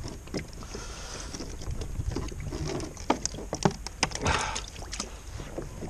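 Irregular sharp clicks and knocks on a fishing kayak as a string of freshly caught mackerel on a multi-hook feather rig is handled aboard, with a brief scuffle of noise about four seconds in.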